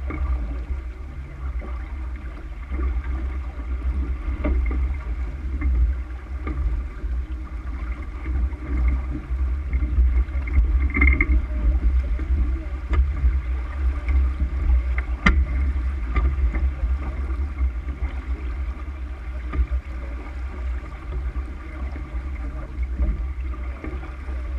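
Wind buffeting the microphone of a camera on a sailboat under sail, a heavy low noise that rises and falls in gusts, over the hiss of water rushing past the heeled hull. There is a sharp click about fifteen seconds in.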